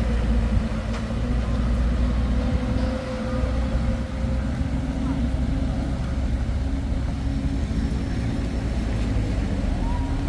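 Heavy diesel engine running steadily at constant speed, with a deep rumble and a steady hum, and people's voices in the background.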